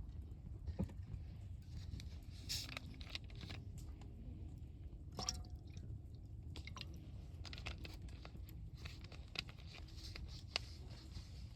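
Wood campfire crackling: irregular sharp pops and snaps from the burning wood over a steady low rumble.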